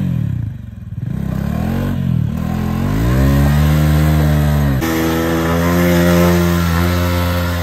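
Motorcycle engine revving hard in the sand: the pitch drops, swells and falls again, then climbs as the rear wheel spins in the loose dirt. About five seconds in the sound cuts abruptly to a second motorcycle, a Bajaj Pulsar 220, held at high revs through a burnout.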